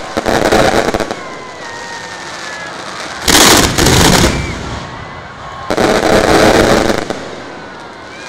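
Large fireworks going off at close range: three loud blasts, each lasting about a second, roughly two and a half seconds apart, with a lower rush of noise between them.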